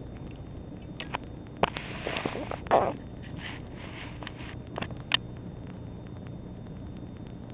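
Bull Terrier puppy mouthing and pawing a tennis ball close to the microphone: a few sharp clicks and a short noisy burst about two to three seconds in, then two more clicks around five seconds, over a steady low hum.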